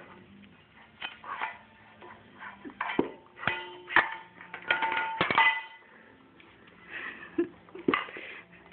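A white plastic spoon knocking and scraping against the inside of a grey cooking pot in irregular clanks, some of them ringing briefly, as a baby bangs and stirs it. The knocks come thickest between about three and five and a half seconds in.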